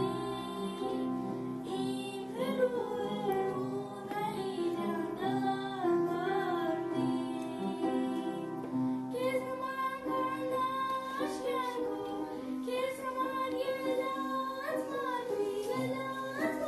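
A girl singing a song into a handheld microphone, with instrumental accompaniment beneath her voice.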